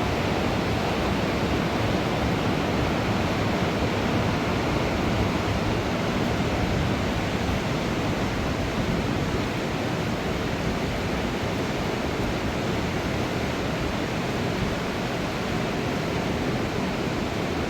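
Rushing mountain river: a steady, even rush of fast-flowing water.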